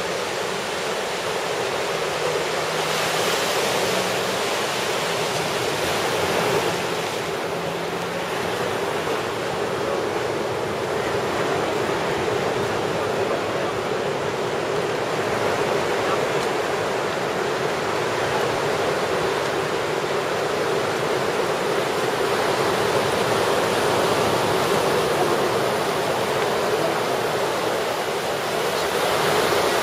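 Ocean surf breaking on the shore: a steady rushing wash that swells a few seconds in and again near the end.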